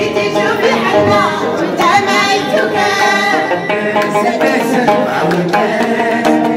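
Several voices singing together to a plucked long-necked Moroccan lute with a skin-covered round body, with hand-clapping keeping the beat; the man playing the lute sings into a handheld karaoke microphone.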